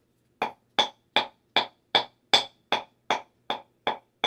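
A wooden stick pounding dry bay leaves on a hard table top to crush them into powder: about ten sharp, evenly spaced knocks, roughly two and a half a second.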